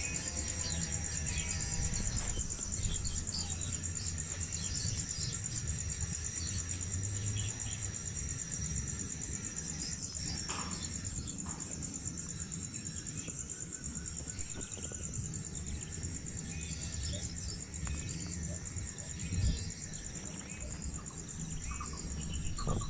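Steady high-pitched insect drone, with scattered short bird chirps and a low rumble underneath.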